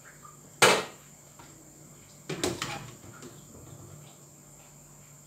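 Aluminium cookware clanking: one sharp, loud metal clank about half a second in, then a few lighter knocks of a utensil against the pot around two and a half seconds in.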